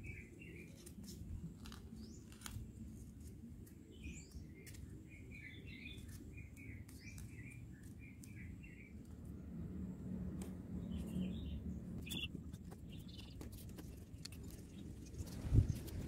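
Small birds chirping in short runs of quick high notes, over faint crinkling and clicking of paper being folded by hand. A louder knock comes near the end.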